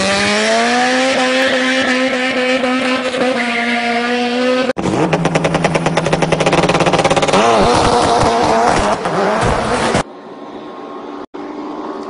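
Dubbed-in vehicle engine sound effects: an engine revs up and holds high revs, then cuts abruptly to a fast, pulsing engine sound. About ten seconds in it drops suddenly to a quieter, steady engine note.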